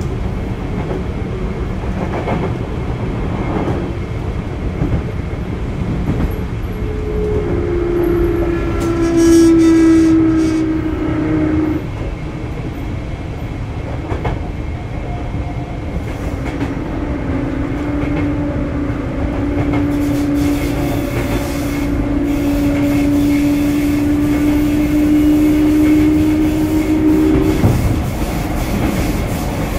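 Sotetsu 8000 series electric train running, with a low rumble of wheels on rail and some rail-joint clicks. The Hitachi GTO-VVVF inverter and traction motors hum twice: for a few seconds about eight seconds in, and again for about ten seconds from the middle until near the end.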